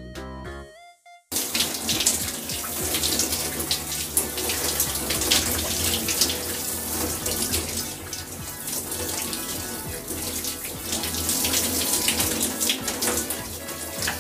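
Shower running: a steady rush of spraying water that starts suddenly about a second in, after a short bit of music ends.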